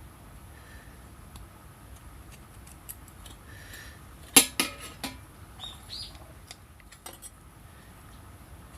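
A quick cluster of sharp metallic clinks and clatters about halfway through, from metal pieces being handled and knocked together. Two short rising chirps follow.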